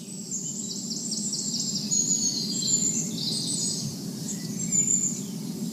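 Birdsong ambience: many small birds chirping and twittering, over a steady low background noise.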